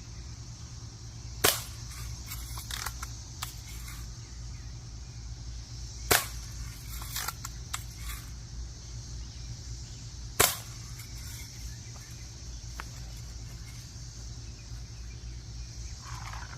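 BB gun fired three times, about four to five seconds apart, each shot a sharp crack, with fainter clicks and taps between the shots.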